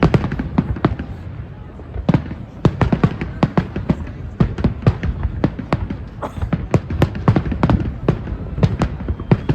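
Fireworks and firecrackers going off, with sharp, irregular bangs several times a second over a continuous low rumble of distant explosions.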